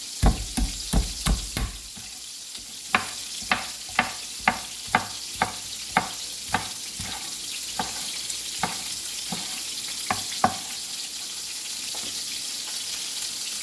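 Knife chopping scallions on a cutting board, sharp cuts at about two a second that stop about ten and a half seconds in, over the steady sizzle of chicken pieces browning in hot oil.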